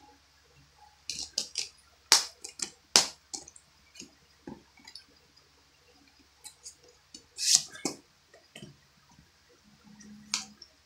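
Plastic Blu-ray cases being handled: a quick run of sharp clicks and snaps in the first few seconds, and another clatter of clicks about seven to eight seconds in, with a single click near the end.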